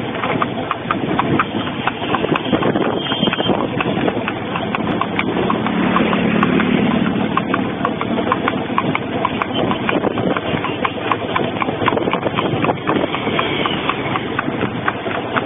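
Horse's hooves clip-clopping on asphalt at a quick, steady pace, about three to four hoofbeats a second, as it pulls a light two-wheeled cart, with a vehicle engine running underneath.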